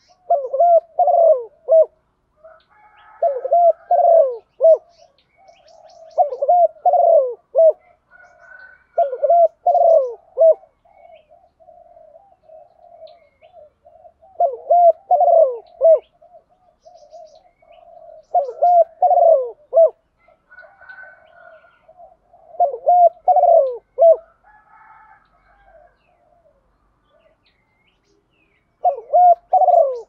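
Spotted dove cooing in repeated phrases of several quick coos, one phrase every three to four seconds, with softer, lower cooing running between the phrases. There is a short pause a little before the end.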